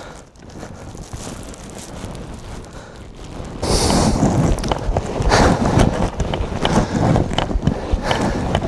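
Wind buffeting the microphone, then from about three and a half seconds in, louder irregular crunching and rustling as someone trudges through deep snow hauling pine branches, breathing hard.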